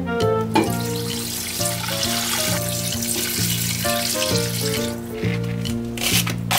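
Water pouring from a glass jug into a pressure cooker, a steady splashing that starts about half a second in and stops about five seconds in, over background music.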